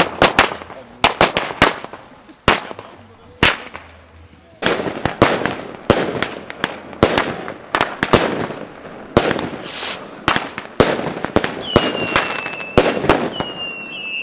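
Firecrackers and aerial fireworks going off in rapid, irregular succession: many sharp bangs, each with an echoing tail. Near the end, two whistling fireworks give high, slightly falling whistles about a second long each, amid the bangs.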